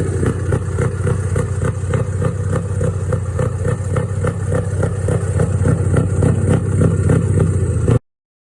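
Scania V8 diesel truck engine running at a steady speed, with a regular pulsing beat. It grows a little louder toward the end, then cuts off abruptly.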